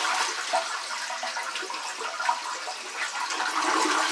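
A 1996 toilet flushing, water rushing through the bowl as it siphons down. The rush eases around the middle and swells again near the end.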